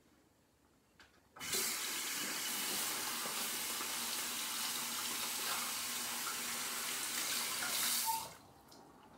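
Bathroom tap turned on and water running steadily into the sink for about seven seconds, then shut off.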